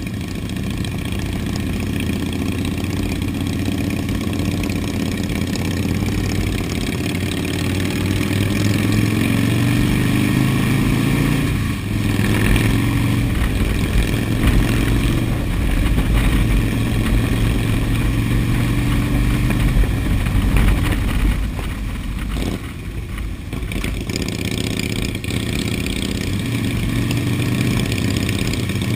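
Cruiser motorcycle engines running at riding speed, heard from the rider's own bike, with a steady low engine note over road and wind hiss. The engine note shifts about twelve seconds in and eases off briefly a little past twenty seconds before picking up again.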